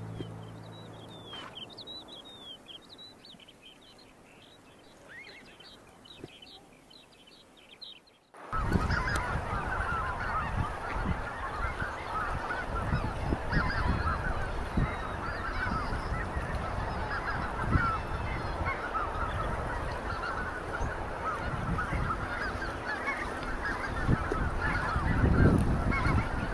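Faint high chirping of small birds, then about eight seconds in a flock of waterfowl starts up suddenly, honking and calling densely over a low rumble of wind or water.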